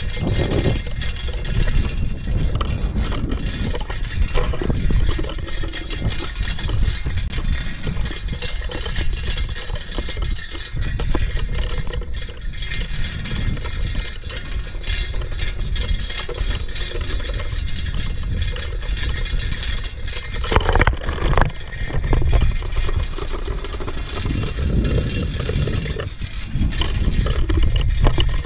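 Wind buffeting the microphone and tyre noise from riding an old bicycle along a paved road, with the bike rattling. A short pitched sound cuts in about two-thirds of the way through.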